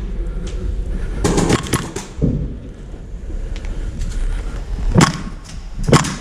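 Indoor airsoft game sounds: a steady rumble of movement, a quick cluster of sharp cracks about a second and a half in, and two loud knocks a second apart near the end.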